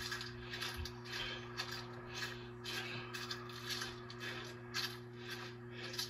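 Footsteps crunching through dry grass, about two to three steps a second, over a steady low electrical hum.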